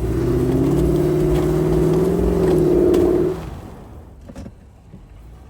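2006 Toyota 4Runner with its V8 working hard as it struggles for traction in deep, rutted snow: a loud, steady buzzing drone for about three seconds that then drops away suddenly.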